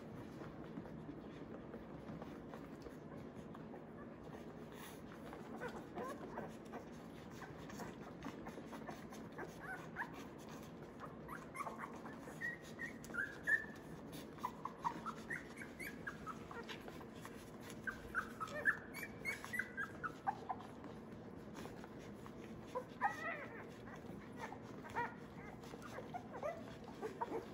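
Two-week-old Australian Labradoodle puppies squeaking and whimpering while nursing: short high-pitched squeals that come in clusters from about ten seconds in, over a low steady background hum.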